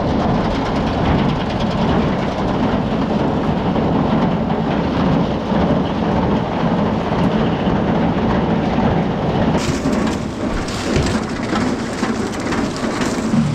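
Ear corn rattling along a crib elevator conveyor and pouring down onto the pile in a nearly full corn crib: a dense, steady clatter. The sound changes about ten seconds in.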